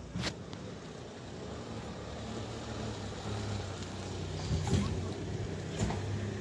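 A motor vehicle's engine running with a steady low hum that grows gradually louder, with a sharp click just after the start.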